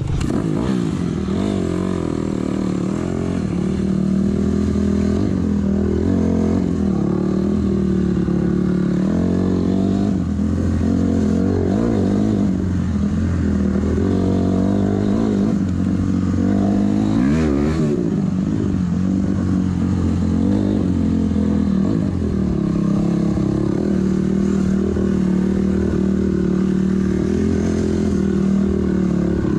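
Honda CRF250R dirt bike's single-cylinder four-stroke engine being ridden, its pitch rising and falling over and over as the throttle opens and closes, then holding steadier after about twenty seconds.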